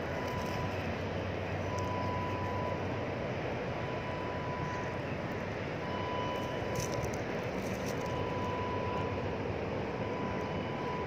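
Steady outdoor background rumble of distant machinery and traffic. A thin high tone comes and goes over it every second or so.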